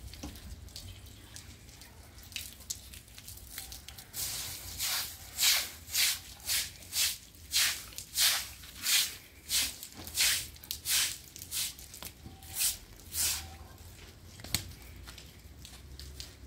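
Straw broom sweeping water across wet concrete: a run of about fifteen quick, even swishes, roughly two a second, starting about four seconds in and stopping a few seconds before the end.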